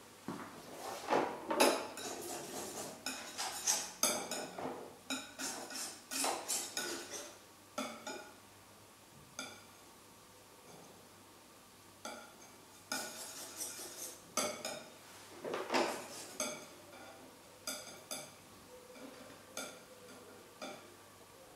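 Painting tools being handled on an oil painter's worktable: irregular clinks and taps of brushes, palette knife and jars being picked up and set down. The clinks are busiest in the first few seconds and again past the middle.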